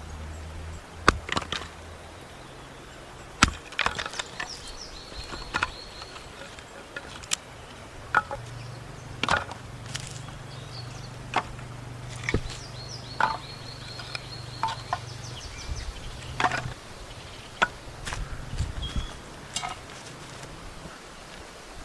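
Wood being chopped or split by hand: about a dozen sharp, irregularly spaced strikes.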